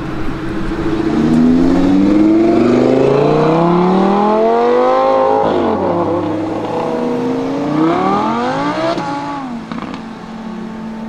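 V10 supercars (a Lamborghini Gallardo and an Audi R8) accelerating hard away, one after the other. The engine note climbs steeply for several seconds and drops sharply about halfway through. It then climbs again and falls away near the end.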